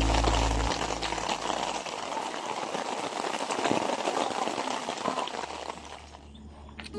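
Rain falling steadily, an even hiss full of small drop ticks. Background music fades out in the first second or two, and the rain fades away near the end.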